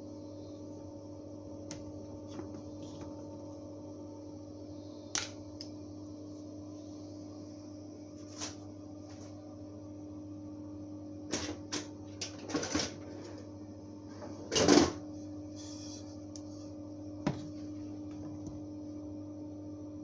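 A plastic blender jug being handled, with scattered light clicks and knocks and a louder knock about fifteen seconds in, over a steady low hum.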